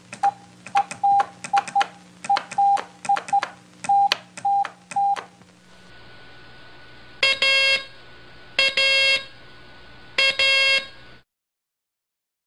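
Morse code sent as a steady mid-pitched tone keyed in short and long elements, with a sharp click at each tone's start and end, for about five seconds. After a short pause come three long, buzzy beeps about a second apart, then the sound cuts off.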